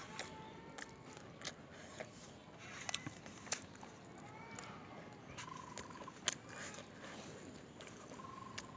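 Faint eating sounds: scattered soft clicks and mouth noises of chewing. Short faint chirps sound now and then in the background.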